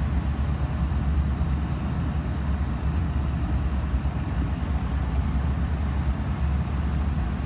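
Steady low hum and air rush inside a 2008 Ford Crown Victoria's cabin with its climate-control blower running, pushing air through the vents being tested.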